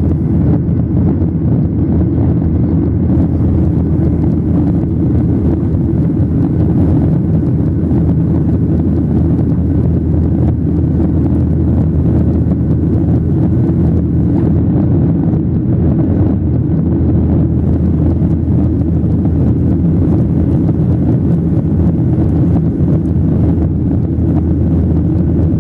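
Steady drone of a Boeing 737-800's CFM56-7B turbofan engines and rushing airflow, heard inside the cabin from a window seat over the wing, the jet climbing out after takeoff. Loud and even throughout, deepest in the low range.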